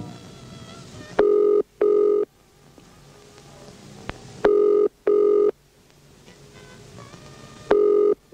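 British telephone ringing tone heard down the line, sounding three times in the double-ring pattern: two short steady buzzes, then a pause of about two seconds. The called number is ringing out unanswered.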